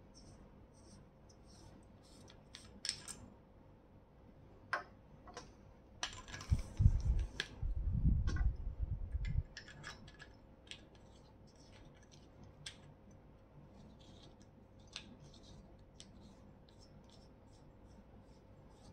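Handling noise from an aluminium LED torch being taken apart and loaded: scattered clicks and scrapes of the threaded body being twisted. Near the middle there are about three seconds of louder rattling and knocking as a battery pack goes into the tube.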